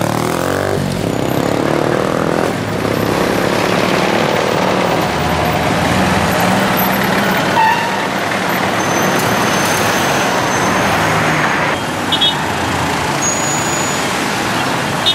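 Dense city traffic: the engines of buses, cars and motorcycles running in stop-and-go congestion, with a motorcycle engine close by near the start. A few brief high squeals and small knocks come through in the second half.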